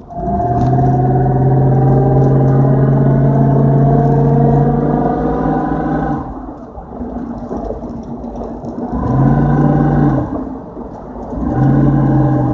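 2004 Dodge Durango's 5.7-litre Hemi V8 revved up and held for about six seconds, then let off, followed by two short blips of the throttle. It is the engine noise the owner is chasing: a strange "buffering" sound on the gas and a rattle when he stomps on it and lets off.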